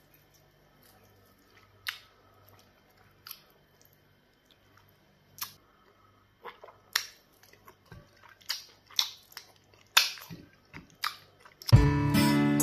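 Close-miked eating sounds: wet smacks and chewing as soft pounded yam fufu dipped in soup is eaten by hand. The smacks are scattered at first and come quicker in the second half. Strummed acoustic guitar music starts suddenly near the end.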